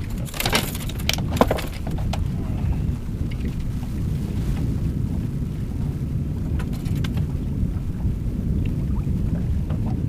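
Wind buffeting the microphone as a steady low rumble, with a cluster of sharp clicks and rattles near the start and a few more about seven seconds in.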